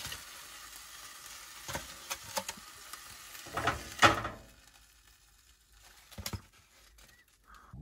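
Steaks sizzling in a frying pan on a Coleman propane camp stove, with a fork clicking and scraping against the pan as they are lifted out, loudest about four seconds in. The sizzle fades away soon after.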